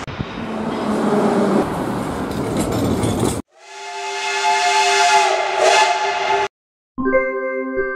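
Jet engine noise from a business jet on the runway for about three seconds, which cuts off abruptly. Then a steam locomotive's whistle sounds a steady chord over hissing steam for about three seconds and stops sharply. After a brief silence, a chiming music jingle begins near the end.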